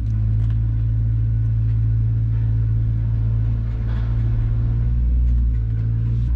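Young kittens purring close to the microphone: a steady, loud low rumble with a fast pulsing grain.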